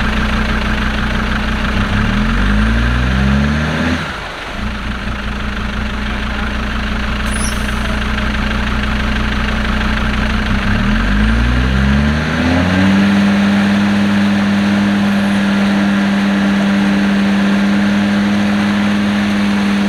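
Land Rover Defender engine revving up under load about two seconds in, easing off, then revving up again and held at steady high revs through the second half.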